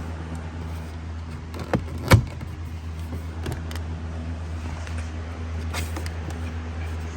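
Plastic glove box being refitted into a car dashboard: a few clicks and knocks, two sharp ones close together about two seconds in, the second the loudest, then fainter taps later, over a steady low hum.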